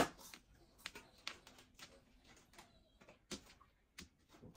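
Mahjong tiles clicking against each other as players draw and place them: a handful of scattered sharp clicks, the loudest right at the start.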